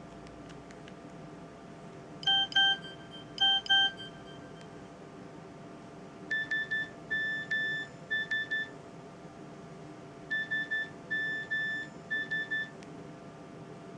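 Nokia 7390 mobile phone's speaker playing electronic message alert tones: two pairs of beeps about two seconds in, then a higher run of quick beeps that plays twice, about four seconds apart.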